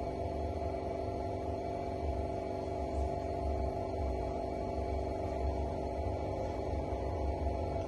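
Steady electrical hum made of several held tones, over a low, unsteady rumbling noise.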